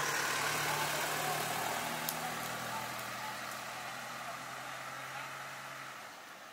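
Pickup truck engine idling, a low steady hum that fades out near the end.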